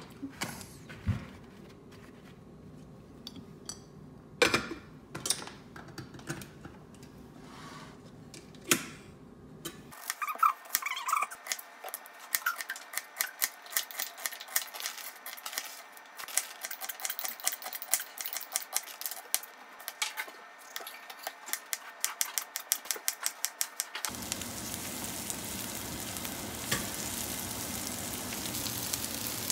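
Kitchen sounds in three parts: a few scattered knocks and clicks as a rice cooker is handled, then rapid chopping of an onion with a knife on a plastic cutting board from about ten seconds in, then a steady sizzle of sliced onion frying in a pan and being stirred with a spatula from about twenty-four seconds in.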